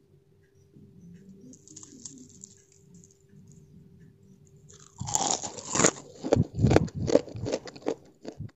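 Loud, irregular crunching from about five seconds in: someone biting into and chewing crispy battered fried egg pieces.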